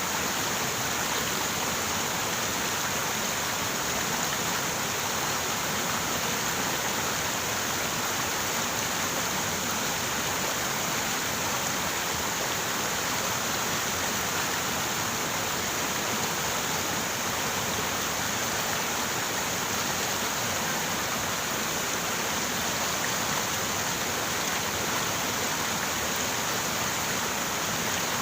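River water running steadily, an even rushing sound that does not change.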